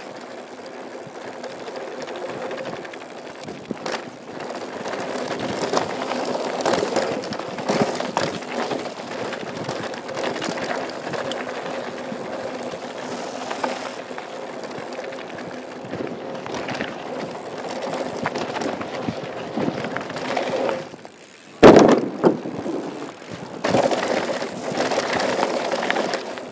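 Downhill mountain bike riding a rough dirt trail: tyres rolling over dirt and rocks with the frame and chain rattling throughout. About 21 seconds in the noise drops for a moment, then a sharp loud thud, the loudest sound here.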